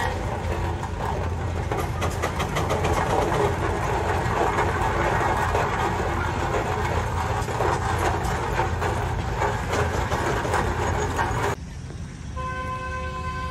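Russell steam traction engine running as it drives by, a dense mechanical clatter over a steady low hum. Near the end the sound cuts off suddenly, and a steady pitched tone comes in with short breaks.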